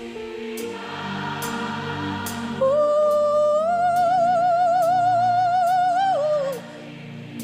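Live gospel worship music: sustained keyboard chords with soft choir singing and light cymbal ticks, over which a high solo voice holds one long note with vibrato, stepping up once and sliding down as it ends.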